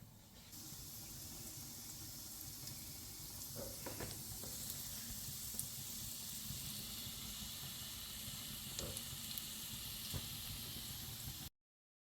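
Food sizzling steadily in a hot frying pan, with a few light taps, cutting off suddenly near the end.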